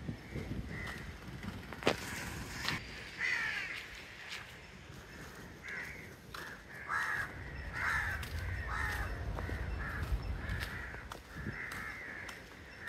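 Crows cawing over and over in short, harsh calls, with a sharp knock about two seconds in.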